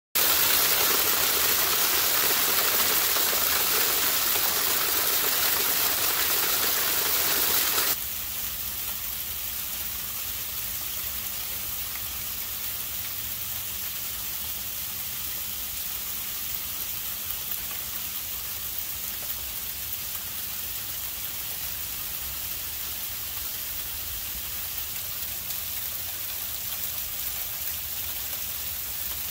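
Sleet falling in a steady hiss of ice pellets. The hiss is louder at first and drops suddenly to a softer, even level about eight seconds in.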